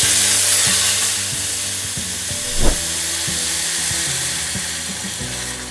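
Hot water poured into a hot steel kadhai of spiced, sautéed sprouted beans, sizzling and hissing as it hits the pan; the hiss slowly dies down as the pan cools. One short knock about two and a half seconds in.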